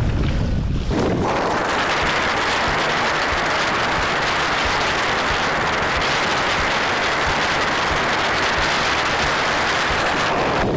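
Steady rushing hiss of water and wind as a Sunfish sailboat sails heeled over through choppy water, setting in about a second in and cutting off near the end.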